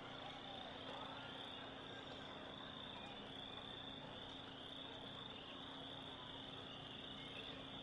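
Crickets chirping steadily in the night air, over a faint steady low hum.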